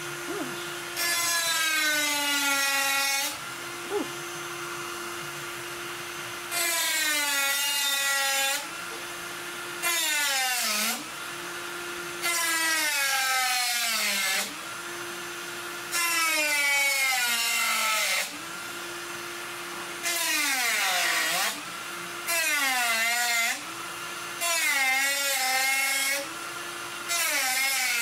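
A rotary tool with a cut-off wheel cutting through a sheet-metal case panel: a steady high motor whine, broken about every two to three seconds by a loud grinding screech as the wheel bites into the metal. Under load, the motor's pitch sags. It climbs back each time the wheel is eased off.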